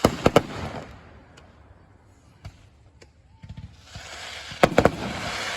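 Fireworks going off in two volleys: a few sharp bangs with a crackling hiss at the start, then after a lull a second volley of bangs and crackle building from about three and a half seconds in.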